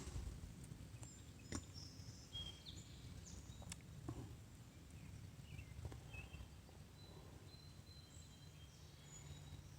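Faint, quiet ambience: a steady low rumble with a few short, faint high bird chirps scattered through, and a few soft clicks.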